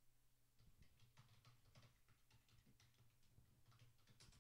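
Very faint computer keyboard typing: irregular key clicks, a few a second, as a word is typed, over a steady low hum.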